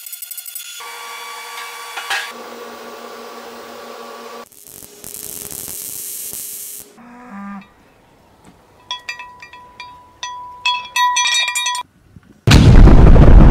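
Edited run of TIG welding arc sounds: a pulsing buzz, then steady hums and hissing, then a stretch of sharp clicks. About a second before the end comes a sudden, very loud explosion blast.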